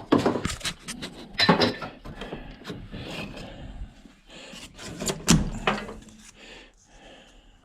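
Irregular clicks and knocks of hand tools and loosened parts against the housing of a hot beverage dispenser being taken apart, with the sharpest knocks about a second and a half in and around five seconds in.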